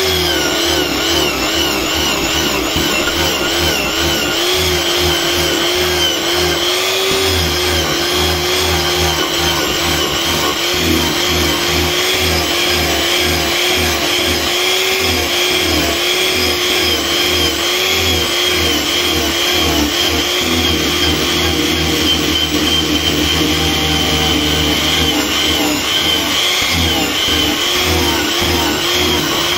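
Angle grinder with a disc hollowing out a cherry wood blank: a steady, loud motor whine whose pitch keeps dipping and recovering as the disc bites into the wood.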